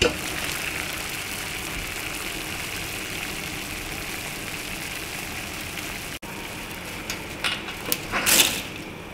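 Pot of water at a rolling boil, bubbling steadily. Near the end, dry spaghetti is pushed into the pot, with a short cluster of clicks and rustles from the stiff strands.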